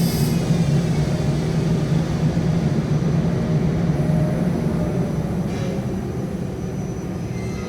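Railway locomotive running with a strong, steady low hum and faint whining tones above it, slowly fading towards the end.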